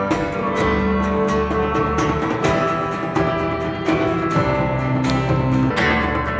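Band music: strummed guitar over a steady drumbeat and bass.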